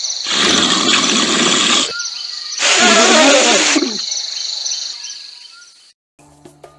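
Steady high insect chirring, with two loud elephant calls over it, the second falling in pitch.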